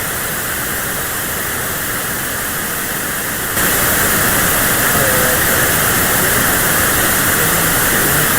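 Steady hiss of radio static on a weak, low-power broadcast signal, jumping louder about three and a half seconds in.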